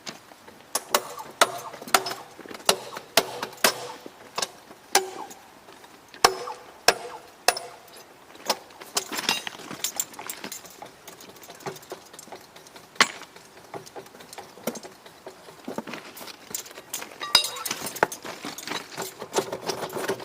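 A run of sharp, irregular knocks and clanks, often two or three a second, some leaving a short metallic ring.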